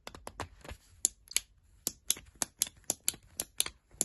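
Toys on a homemade fidget board being clicked by hand: a quick, uneven run of sharp plastic clicks, about five a second.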